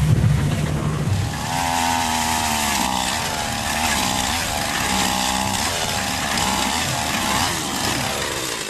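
Gas-powered ice auger's small two-stroke engine running as it bores a hole through lake ice, its pitch dipping and recovering as the load on the bit changes. It comes in about a second in, after a low rumble.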